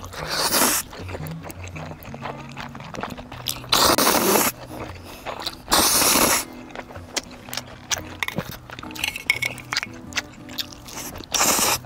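Jjajang ramen noodles slurped in four loud bursts, with chewing and small clicks between them, over background music.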